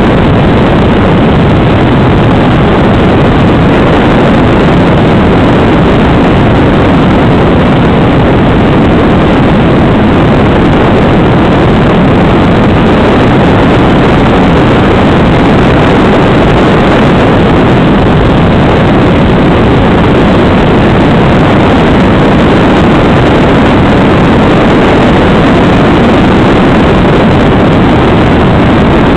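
Multiplex FunCub RC plane's electric motor and propeller in flight, picked up by the plane's onboard camera as a loud, steady rushing drone without a clear pitch.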